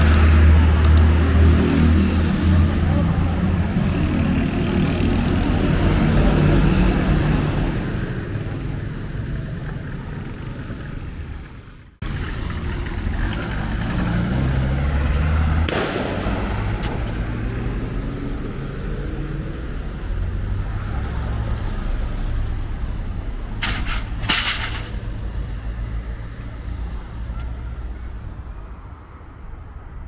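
City street traffic: motor vehicles running and passing close by, loudest in the first several seconds. The sound breaks off abruptly about twelve seconds in and resumes at once. Two short, sharp sounds come about three quarters of the way through.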